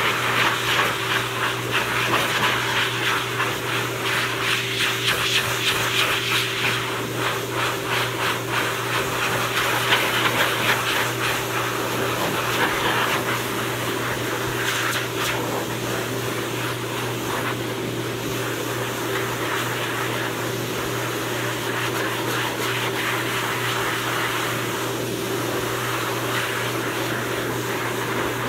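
Pet grooming dryer blowing a steady rush of air over a wet dog's coat, with a constant motor hum underneath; the hiss of the air wavers as the nozzle is moved over the fur.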